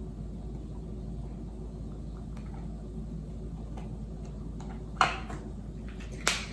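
Marker writing on a plastic container lid with faint scratchy ticks over a steady low room hum, then two sharp plastic clicks a little over a second apart near the end as the marker is handled and capped.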